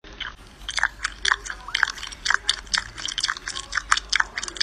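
Two Sphynx cats licking a long-haired cat's wet head fur: quick, wet tongue smacks and rasps, about four a second.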